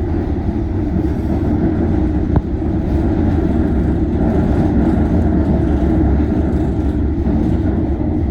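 Interior rumble of a London Underground train running on the rails, growing a little louder over the first few seconds as it picks up speed, with one sharp click about two seconds in.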